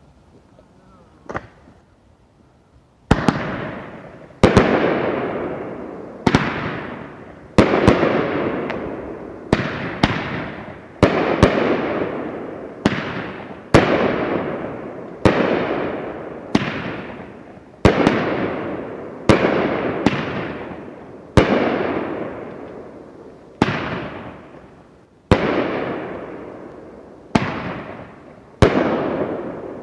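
Two Firehawk War of Willows 16-shot 500-gram fireworks cakes firing willow shells, a long string of sharp bangs about one every second, each trailing off in a long fading rumble. A single small pop comes about a second and a half before the barrage starts.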